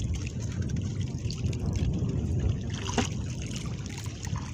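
Sea water lapping and trickling around a small outrigger boat, over a low steady rumble, with one light knock about three seconds in.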